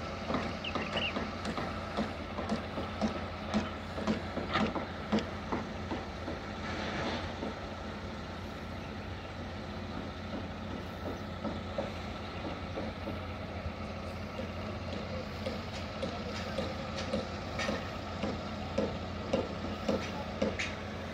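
Engine of heavy construction machinery running steadily, with short knocks and clanks scattered throughout.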